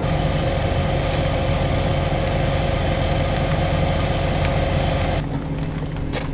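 Rollback tow truck's engine idling with a steady hum. About five seconds in the sound drops to a quieter, lower running with a few light clicks.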